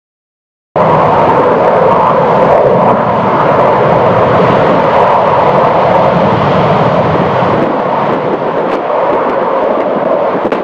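Eurofighter Typhoon jets' Eurojet EJ200 turbofans running for take-off without afterburner: a loud, steady jet roar that cuts in suddenly about a second in and eases slightly near the end.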